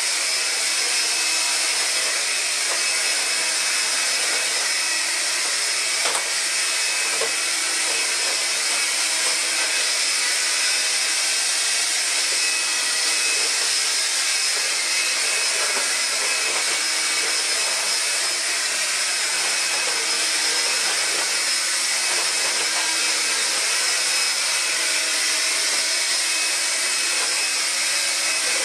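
Vax Air Cordless vacuum cleaner running steadily while vacuuming: a constant high motor whine over the rush of air.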